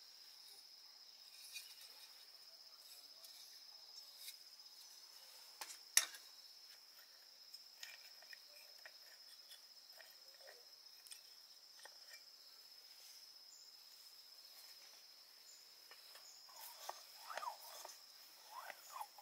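Quiet ambience with insects keeping up one steady, high-pitched drone. Small scattered clicks and one sharp click come about six seconds in, and a few short, pitch-bending calls come near the end.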